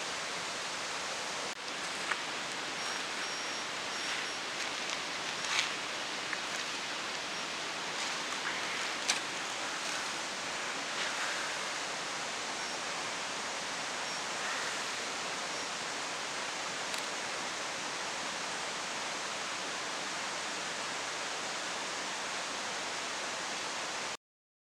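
Steady outdoor background hiss, with a few faint clicks and knocks in the first half. It cuts off suddenly near the end.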